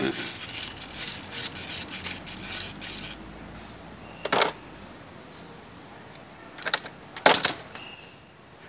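Metal tools and small metal parts clinking and rattling rapidly for about three seconds, then a few separate clinks, as a motorcycle engine part is taken apart.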